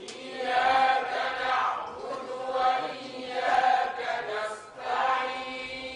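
A group of voices chanting together in unison, a Sufi dhikr chant sung on a few held notes in repeated phrases that swell and fade.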